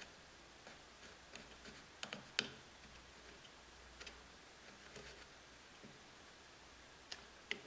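Faint scattered small clicks and taps of handling as a wooden toothpick and fingers work glue into a crack in a wooden scabbard, the loudest tap about two and a half seconds in.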